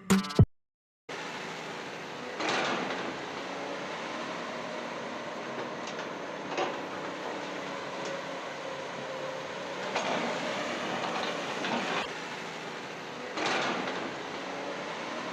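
A radio-controlled toy construction vehicle's small electric motors and plastic gearboxes whirring steadily, with several brief louder surges as a function is driven harder.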